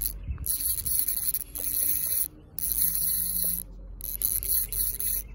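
Fishing reel being cranked in four bursts with short pauses between, a high, rasping ratchet-like whir that starts and stops abruptly.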